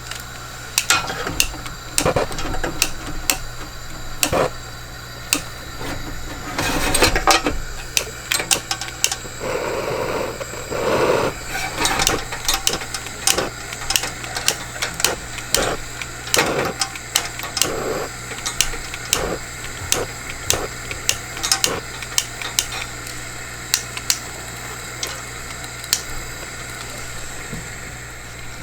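A run of irregular sharp clicks and light knocks, several a second at times, with a denser clatter about seven seconds in and a few duller thuds a little later, over a faint steady hum.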